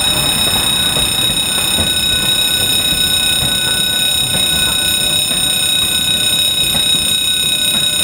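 Level-crossing warning alarm ringing continuously with a steady, high-pitched electronic tone, while the coaches of a tourist train roll past over the crossing.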